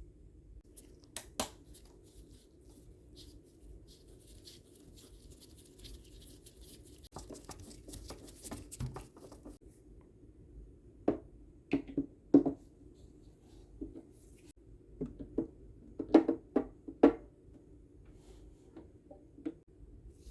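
Parts of a DeLonghi espresso machine being handled during disassembly: scattered clicks and knocks, with a stretch of light scratching in the first half and a run of sharper knocks in the second half.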